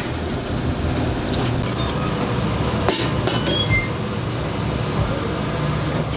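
Steady rumbling kitchen noise around a frying pan on a stainless-steel stove, with a few sharp clinks and short high squeaks about halfway through.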